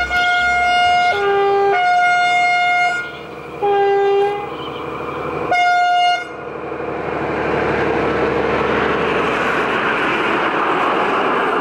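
Horn of the 'Blauer Blitz', an ÖBB class 5045 diesel railcar, sounding five loud blasts that alternate between two notes over the first six seconds. The railcar then passes close by, its running noise swelling.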